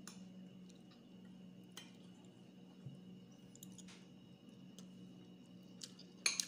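A few light clicks and clinks of a metal spoon against ceramic plates, the loudest near the end, over a steady low hum.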